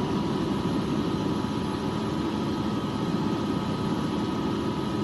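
AgustaWestland helicopter's turbine engines and rotor running steadily on the ground: a constant low drone with a steady high whine above it.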